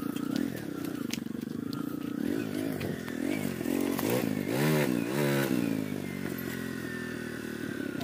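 Motorcycle engine idling, then revved up and down several times in the middle before settling back to a steady idle.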